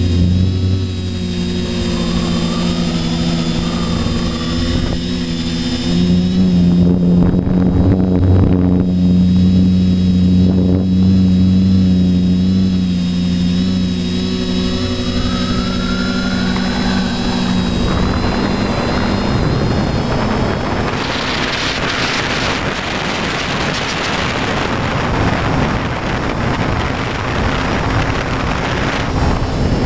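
A multirotor quadcopter's electric motors and propellers, heard up close from on board, running with a steady buzzing hum that shifts in pitch as the throttle changes. From a little past halfway a rushing noise of air grows over the motor hum.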